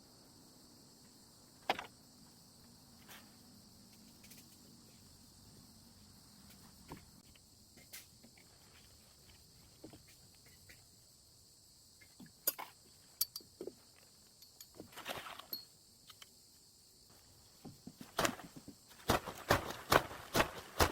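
Crickets chirring steadily, with scattered soft clicks and then a quick run of louder clicks and knocks near the end.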